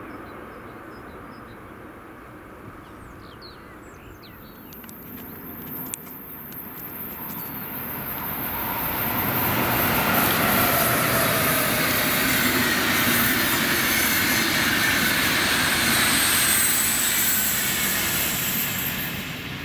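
An Intercity train hauled by a DB Class 101 electric locomotive passing on the line. A thin high whine starts about four seconds in as it approaches, then the sound swells into the steady rush of wheels and coaches, loudest in the middle, and fades near the end.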